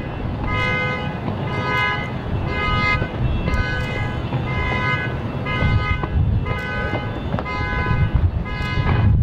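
Vehicle horns honking over and over in short blasts, about one or two a second, at slightly different pitches, over a steady low rumble with occasional thuds.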